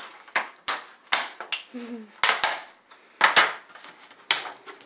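A quick, irregular run of sharp knocks and clacks, about a dozen in five seconds.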